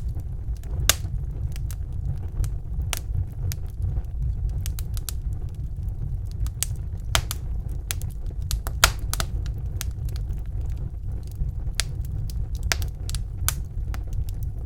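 Wood fire crackling in a fireplace: many irregular sharp pops and snaps over a low rumble of burning.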